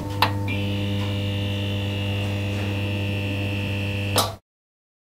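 Electric buzz of a neon sign sound effect: a click as it switches on, then a steady mains hum. About four seconds in a sharp crackle, then it cuts off abruptly.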